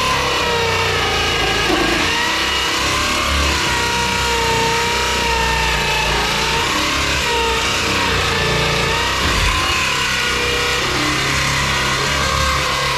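Electric drill driving a 1 3/4 inch hole saw through sheet metal, its motor running steadily with a pitch that wavers as the cutting load changes.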